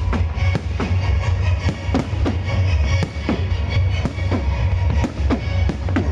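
Loud music with a heavy bass and a fast, steady bass-drum beat, mixed with the bangs and crackle of a fireworks display.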